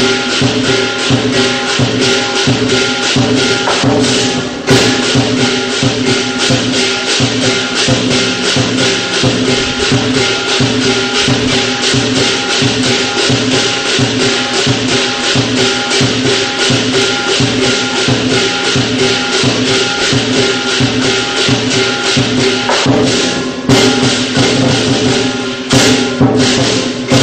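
Lion dance percussion band of drum, cymbals and gong playing a fast, steady beat, with the cymbals and gong ringing on under the drum strokes.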